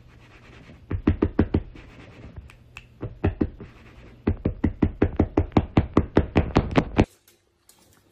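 A hand patting a fabric-covered sofa arm in quick runs of dull taps, about five a second, in three bursts, the last and longest stopping suddenly about a second before the end.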